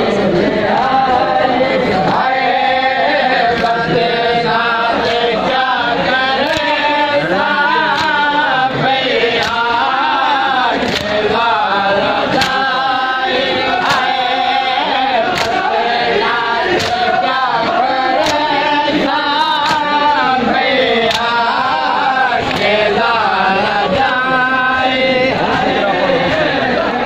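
A group of men chanting a noha, a Shia lament, in unison. Sharp hand strikes on bare chests (matam) keep a steady beat of about one every three-quarters of a second.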